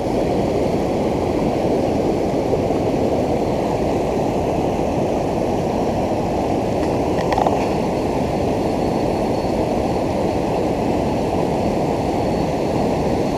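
River water rushing steadily over the rapids of a weir, a continuous low rushing noise.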